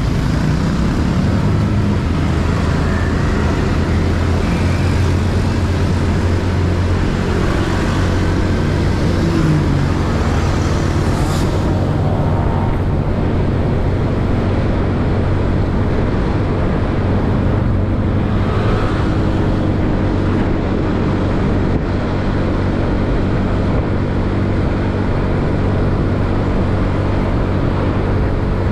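Yamaha Mio scooter's single-cylinder four-stroke engine running steadily while riding, with road traffic around it. Its pitch rises and falls briefly about ten seconds in.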